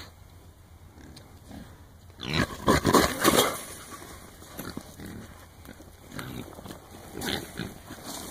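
A penned herd of trapped wild hogs calling and scrambling. A loud burst of noise comes about two seconds in as the herd bolts and one hog charges, followed by scattered, quieter calls.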